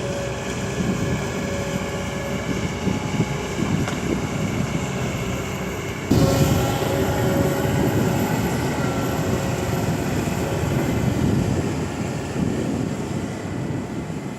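Kobelco SK200 excavator's diesel engine running steadily with a hum of held tones. About six seconds in it suddenly gets louder and stays up.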